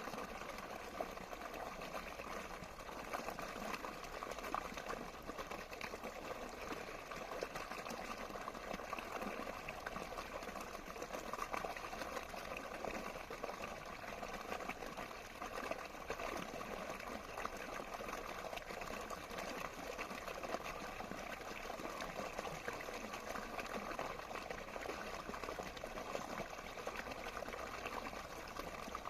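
Running water flowing steadily, an even wash of sound with no pauses.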